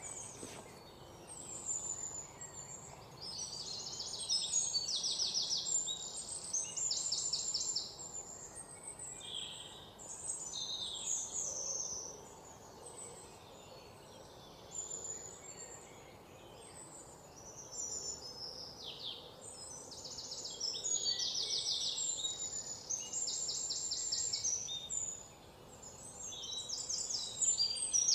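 Small songbirds singing: high chirps and fast trills in short repeated phrases, over a faint steady background hiss.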